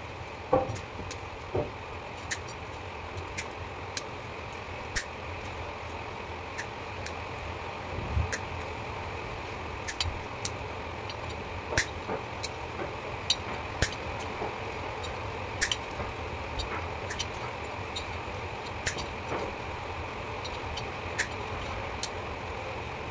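Irregular sharp clicks and snips, roughly one a second, of pliers and wire cutters working the old winding wire out of a pump motor's stator, over a steady hum.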